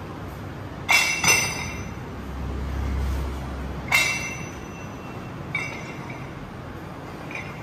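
Iron weight plates clanking against each other and a steel gym machine as they are handled: two ringing metal clanks about a second in, another about four seconds in, then lighter clinks near the end, with a low rumble between them.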